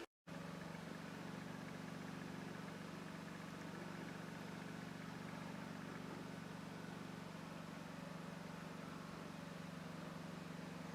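A faint, steady low hum that does not change, after a brief cut to silence at the start.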